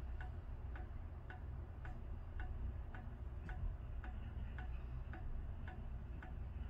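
Steady, even ticking, a little under two ticks a second, over a low steady hum.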